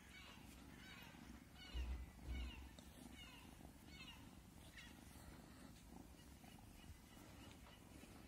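A kitten purring faintly in an even rhythm while it plays, with two soft low thumps about two seconds in.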